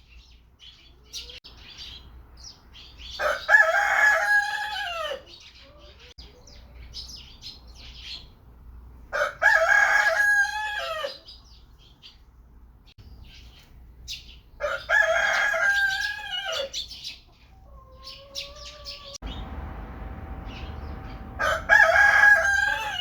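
Rooster crowing four times, each crow about two seconds long and roughly six seconds apart, with short high chirps in between.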